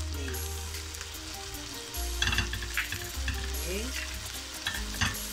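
A slice of marinated beef shank steak sizzling and frying on a hot flat griddle pan, with a steady hiss and a few sharp ticks.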